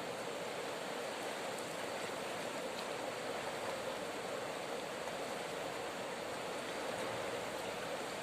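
Steady sound of river water flowing, an even noise with no change in level.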